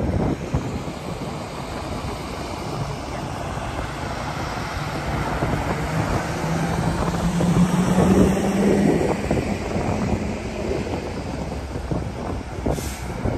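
Convoy of pickup trucks, a box truck and towed trailers driving past, with a steady rumble of engines and tyres. A truck engine's drone swells and is loudest about eight seconds in as it passes.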